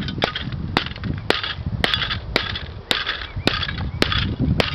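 Repeated blows on a laptop's DVD drive, about two a second, each a sharp crack followed by a brief rattle of breaking plastic and metal parts.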